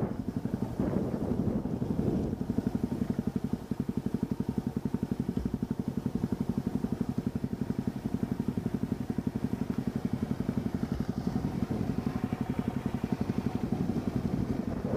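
Off-road vehicle engine running at low speed with a steady, rapid pulsing beat as the vehicle crawls over bare rock.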